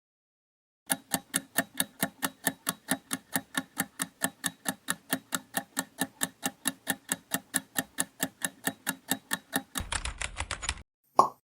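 Quiz countdown-timer sound effect: an even clock ticking, about four to five ticks a second, for about nine seconds. It ends in a short rattle and one loud, sharp sound effect near the end.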